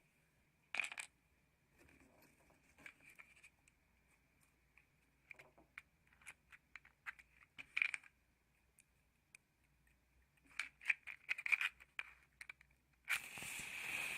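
Small clicks and rattles of matchsticks and a matchbox being handled, then near the end a match struck against the box and flaring up with a hiss that lasts over a second.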